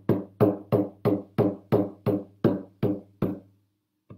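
Steady drum beat of evenly spaced ringing strikes, about three a second, that stops about three and a half seconds in; one faint strike follows near the end.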